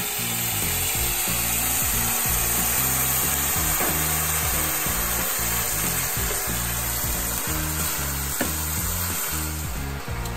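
White wine sizzling steadily as it hits a hot pan of toasted Arborio rice; the sizzle fades near the end. Background music plays underneath.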